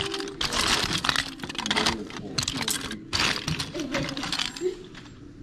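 Small hard-plastic toy figures and parts clattering and rattling against one another as hands sift through a pile of them. The clatter is dense at first and thins out near the end.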